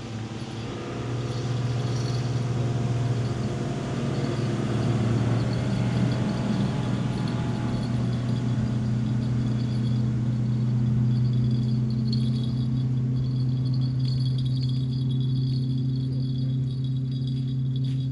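Motorboat engine running out on the lake: a steady low drone that swells about a second in and then holds.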